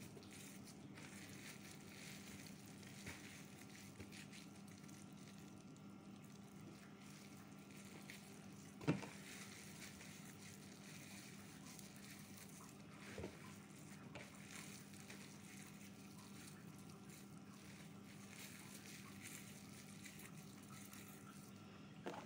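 Very faint handling sounds of hands tearing soft, wet kaofu (wheat gluten) into pieces over a plastic colander, over a steady low hum. A single sharp click comes about nine seconds in, and a softer knock a few seconds later.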